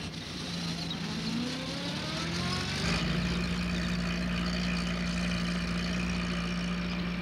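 Small van's engine pulling away, rising in pitch over the first few seconds, then running at a steady note.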